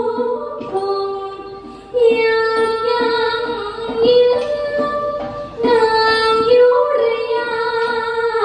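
Female likay singer singing, amplified through a headset microphone: long held notes that step between pitches, with two short breaks for breath.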